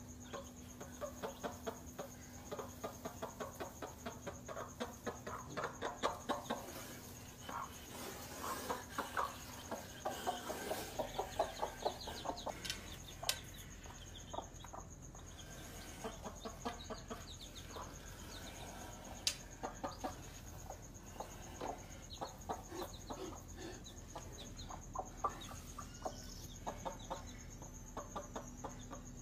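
A hen clucking in runs of short, quickly repeated calls, with her chicks cheeping.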